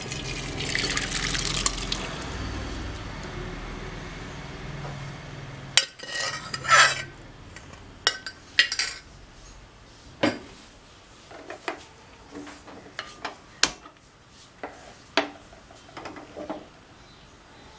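Cooked chana dal and its cooking water poured from a stainless-steel pressure cooker into a steel pot, a splashing pour that is loudest at the start and trails off over the next few seconds. After that come scattered metal clinks and knocks of the steel vessels and utensils being handled.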